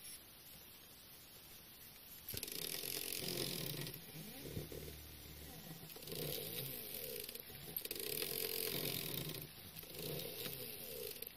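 Small stepper motors from salvaged DVD drives whining in repeated bursts as they turn the lead screws of a homemade pen plotter. Their pitch slides up and down with each move, with short pauses between moves, starting about two seconds in.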